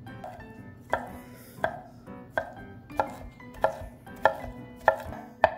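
Kitchen knife chopping cabbage and carrot on a wooden cutting board: a steady knock of the blade on the board about every two-thirds of a second, starting about a second in.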